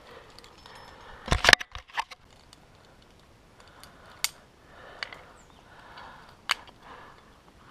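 Metal climbing protection clinking: carabiners and camming devices on a trad climber's harness rack clacking together in a few sharp knocks, the loudest a quick cluster about a second and a half in.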